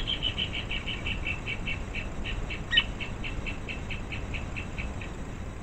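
Pale-legged hornero (casaca-de-couro-amarelo) calling: a long run of short, clipped high notes, about four a second, for some five seconds before stopping. A single sharp click sounds about three seconds in.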